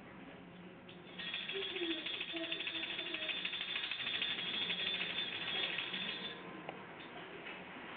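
Rapid, dense ratchet-like clicking rattle from a hand-worked object. It starts about a second in and stops about six seconds in.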